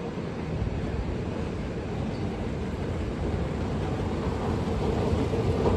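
Elizabeth line train running with a steady low rumble that slowly grows louder, a steady hum coming up toward the end.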